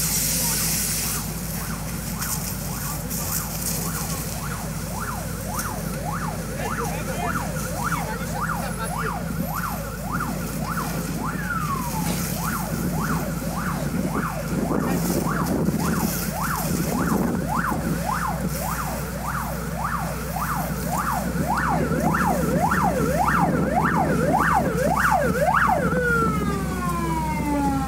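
Emergency vehicle siren in a fast up-and-down yelp, about two to three sweeps a second, growing louder in the second half. Near the end it winds down in a long falling glide. A steady low engine hum runs underneath.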